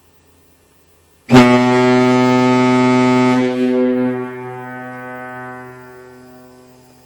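SS Norway's Tyfon ship's horn giving one blast. It starts abruptly about a second in, holds one deep, steady note for about two seconds, then dies away over the next three seconds.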